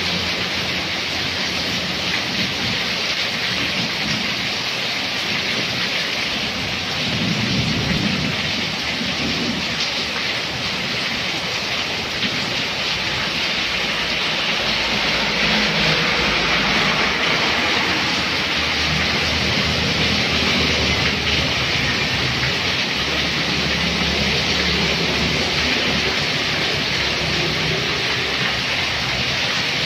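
Heavy tropical rain pouring onto a road and a shop awning as a steady, dense hiss. Low rumbling comes and goes beneath it, around a quarter of the way in and through the second half.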